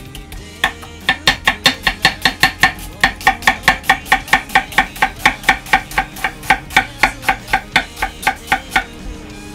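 Chef's knife slicing a red onion thinly on an end-grain wooden cutting board: rapid, even strokes about five a second, each ending in a knock of the blade on the board. It starts about half a second in and stops just before the end.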